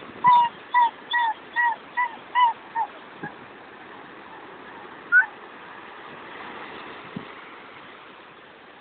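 A bird calling a quick series of about seven short honking calls, then a single rising call a few seconds later, over a steady rush of wind and surf.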